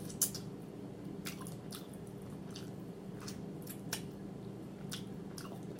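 Close-miked mouth sounds of a person chewing smothered chicken: irregular wet smacks and lip clicks, over a steady low hum.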